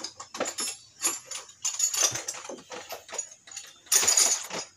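A quick, irregular run of rustles, scrapes and light clinks, loudest about four seconds in.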